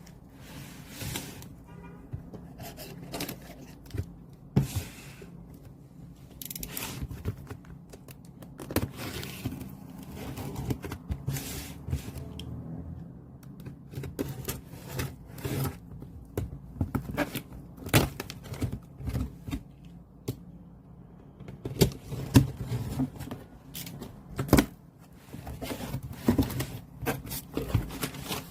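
Album packaging being opened and handled: irregular rustling, tearing and scraping with frequent light taps and clicks.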